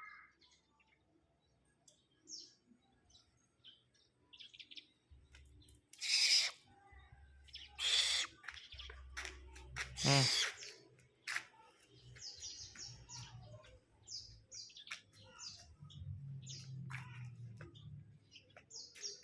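Barn owl giving three loud, harsh screeches about six, eight and ten seconds in, the last one falling in pitch. Many short, high bird chirps come in between.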